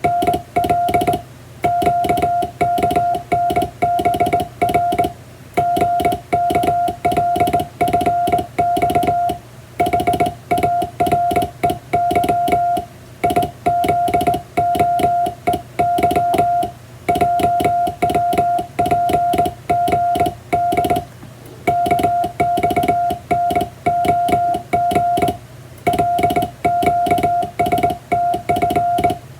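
Morse code sent by hand on a vertical straight key: a steady mid-pitched sidetone beeping on and off in dots and dashes, with a click at each stroke and short pauses between words.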